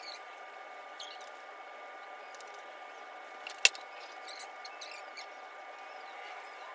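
Small clicks and taps of tools and brake parts being handled, with one sharp click about three and a half seconds in, over a steady faint hum.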